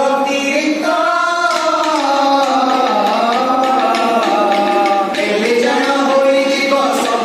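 Male voices singing an Odia Dasa Kathia ballad together, with long held notes that glide up and down, with a short break about five seconds in.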